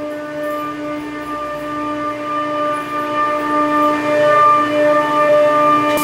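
Loud, steady tonal whine of an old Trane R Series helical-rotary (screw) chiller's compressor filling the mechanical room. This is the excessive compressor noise the customer complained of, on a chiller running with high condensing temperatures.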